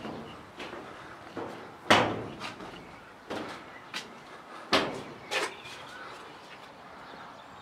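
Footsteps on the walkway: a run of irregular knocks and scuffs, about one or two a second, the loudest about two seconds in. They thin out after about five and a half seconds.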